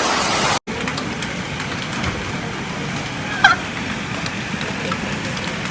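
Steady rush of a heavy rain and hail storm, with scattered faint ticks of hailstones striking. About three and a half seconds in, one brief high cry wavers up and down over it.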